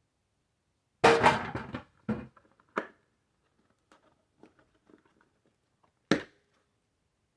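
Plastic parts of a Nerf electronic target being handled during a teardown: a burst of clattering knocks about a second in, then scattered small clicks, and one sharp knock near the end.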